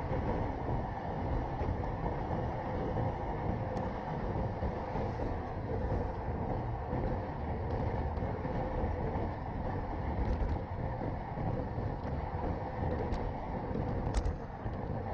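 Steady rush of wind and tyre noise from a road bike rolling on asphalt at speed, picked up by a handlebar-mounted action camera, with a few light clicks about ten and fourteen seconds in.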